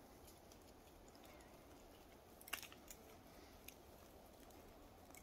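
Near silence: faint outdoor background hiss, with a few short sharp clicks a little past halfway.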